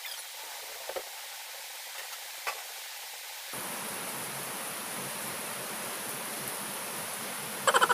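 Steady background hiss of room noise, becoming fuller and louder about halfway through, with a few faint clicks. A sudden loud, pitched, rapidly pulsing sound starts right at the end.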